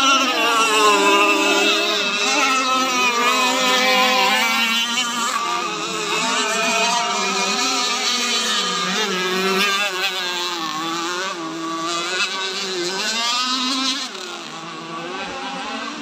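Several remote-control racing powerboats running at speed together, their engines making a high buzzing whine whose pitch wavers up and down as they race round the course. It gets a little quieter in the last couple of seconds.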